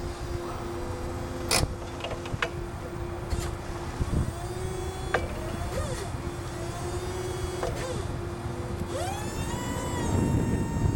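OM Pimespo E4600 electric forklift's hydraulic pump motor humming steadily, with a few sharp clicks from the mast and carriage. About nine seconds in, the motor speeds up into a higher, steady whine as the forks are lifted.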